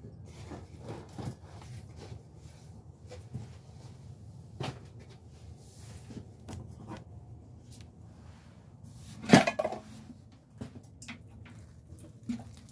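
Hands handling potting gear while setting herb cuttings into a cell tray: scattered light taps, clicks and knocks, with one much louder knock about nine seconds in.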